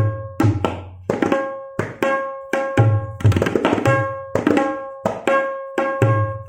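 Tabla playing a farmaishi chakradhar in teentaal, a composition that imitates fireworks and crackers. Sharp ringing strokes on the tuned right-hand drum come about three a second, with deep bass strokes on the left-hand drum at the start, in the middle and near the end.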